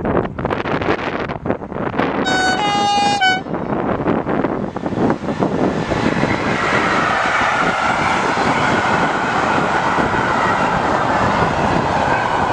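Electric freight locomotive sounding its two-tone horn briefly about two seconds in, over wind buffeting the microphone. The freight train of car-carrier wagons then rolls past with steady wheel and rail noise.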